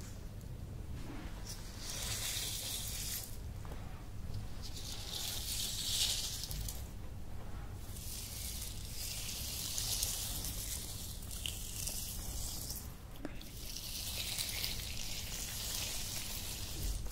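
Hands rubbing a grainy scrub along a bare forearm: soft, hissing, gritty swishes of skin on skin that swell and fade in slow strokes every few seconds, one long stroke in the middle.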